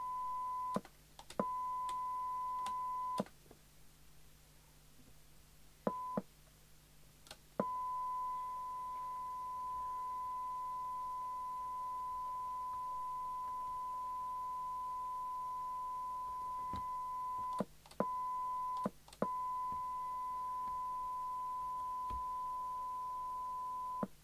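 A steady test tone from a signal generator, received by the Murphy CBH1500 CB base station and played through its loudspeaker, cutting out and back in several times with a click at each change as the squelch preset is turned: the squelch closing and opening. The longest drop-out lasts a few seconds, a few seconds in.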